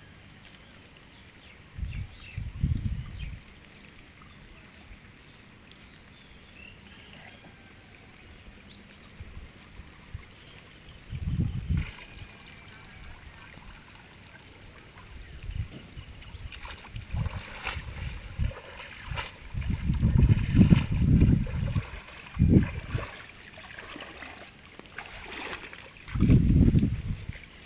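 Water sloshing and splashing in a canal as a cast net is worked, with several loud low thuds, about 2, 11, 20–22 and 26 seconds in, and sharper splashes in the second half.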